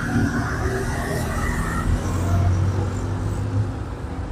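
Motor vehicle engine running steadily: a low hum with a rushing noise above it.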